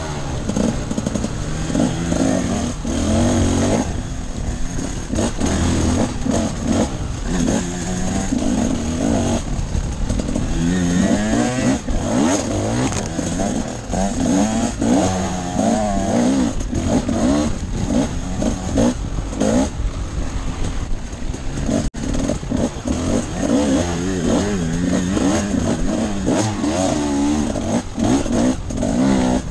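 Off-road motorcycle engine being ridden hard: it revs up and drops back again and again as the throttle opens and closes.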